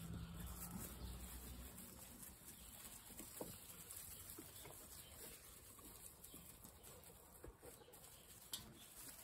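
Near silence with faint scuffling from a litter of nine-week-old golden retriever puppies crowding together on hay, and a few brief, soft sounds from the litter.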